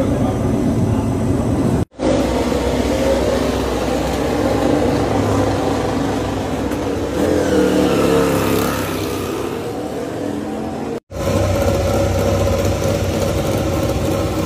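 MotoGP racing motorcycle engine running, with a rev swelling up and easing off about halfway through. The sound cuts out briefly twice.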